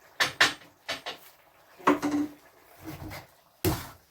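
A series of short clattering knocks of utensils and dishes being handled, about one a second, the loudest near the end.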